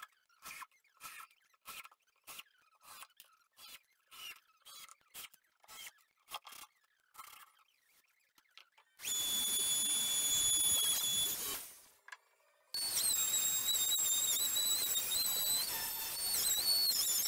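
A corded handheld router starts about nine seconds in with a high motor whine. It winds down near twelve seconds, starts again a second later and runs on, the whine wavering as the bit cuts along the edge of the plywood top. Before it there is a run of short squeaks, about two a second.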